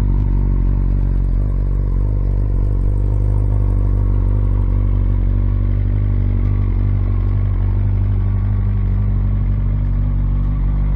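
A 2021 BMW S1000RR's inline-four idling steadily, warming up after a cold start. It runs through a titanium Akrapovic full exhaust with the stock BMW muffler and a Brentune Stage 1 ECU flash, and sounds deeper and quieter than with the GP can, with no spitting.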